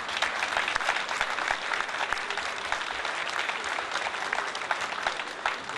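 Audience applause: many people clapping in a hall, steady throughout, dying away near the end.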